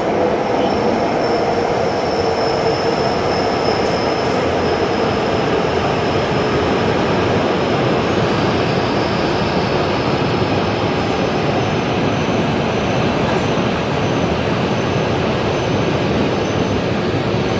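Shinkansen bullet train pulling into the station, its cars sliding past with a steady loud rush of wheels and air. A thin high whine sits over the noise for about the first twelve seconds, then fades.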